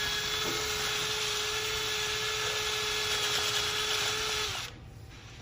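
Power drill spinning a rotary dryer-vent cleaning brush inside the duct, running steadily with a hum, then stopping about four and a half seconds in.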